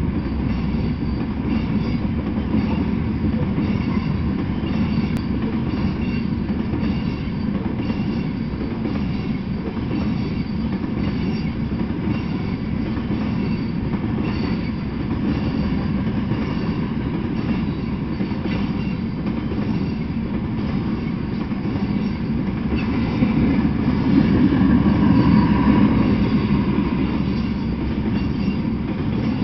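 Freight train of tank cars rolling past, a steady low noise of steel wheels running on the rails. It grows louder for a few seconds near the end.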